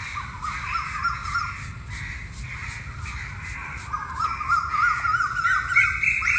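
Crows cawing over and over, with faint regular scratching strokes of a broom sweeping a concrete road.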